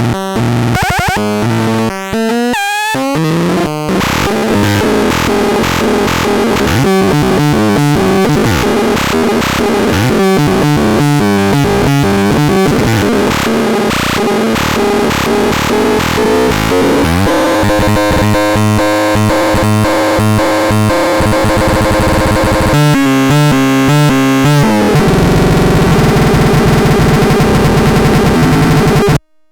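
Torturon C 20 electronic noise synthesizer playing harsh, glitchy tones. The pitch steps and sweeps rapidly, then settles into more sustained layered tones and a steadier drone, and cuts off suddenly just before the end.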